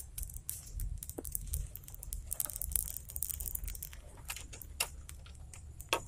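Scattered light clicks and taps from a bamboo fishing rod and gear being handled in a wooden boat, over a low steady rumble.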